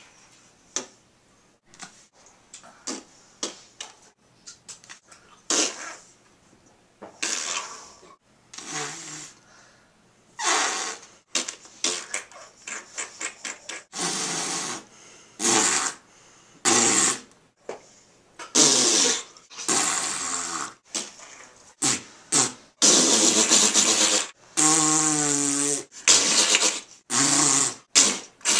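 A string of mouth noises made with the lips and cheeks. Short pops and clicks come first, then longer, louder breathy blowing noises like raspberries. Near the end one raspberry has a buzzing pitch.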